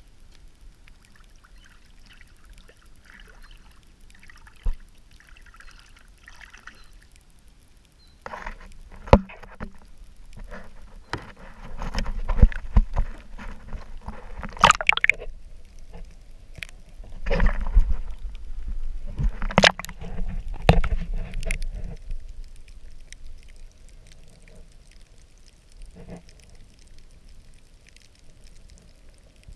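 Shallow seawater sloshing and splashing against a camera held at the waterline, with sharp knocks and clicks from handling. The sound is quiet at first, busiest from about 8 to 22 seconds in, and quieter again near the end as the camera goes under the surface.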